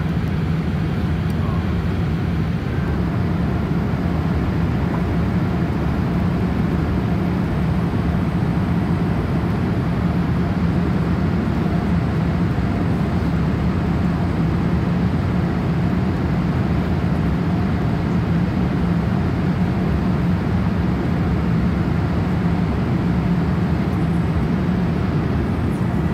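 Steady cabin noise inside a Boeing 787-8 in flight: a low, even rumble of airflow and its Rolls-Royce Trent 1000 turbofans, heard from a window seat beside the engine, with a faint steady hum under it.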